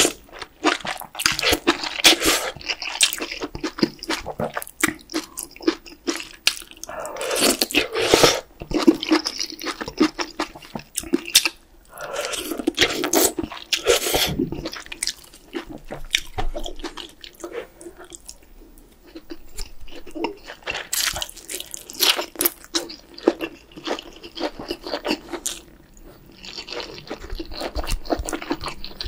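Close-miked eating of spicy beef brisket soup with glass noodles: long slurps of noodles and broth between stretches of wet chewing, with many sharp mouth clicks.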